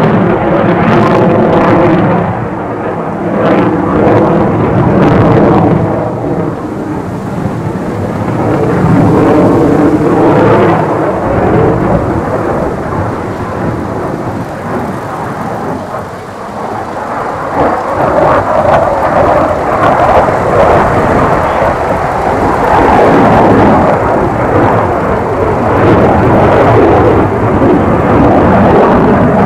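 F-16 fighter jet's single Pratt & Whitney F100 turbofan in display flight, a loud, rough jet rumble that swells and fades as the aircraft manoeuvres. A wavering engine tone shows through in the first few seconds and again about ten seconds in.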